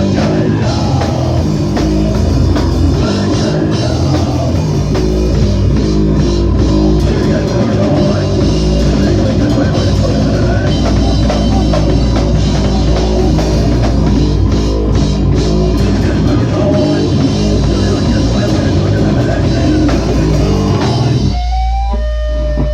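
Live rock band playing loud, with distorted electric guitar and a drum kit. The full band stops about a second before the end, leaving a single held note ringing.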